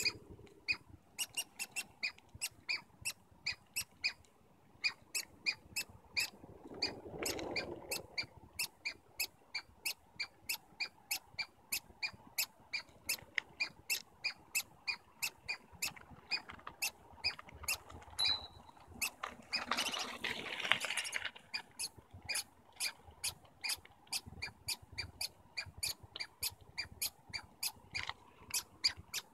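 Douglas squirrel calling with a long run of sharp, repeated squeaks, about two or three a second, with a few brief pauses. A short burst of rustling noise comes through about two-thirds of the way in.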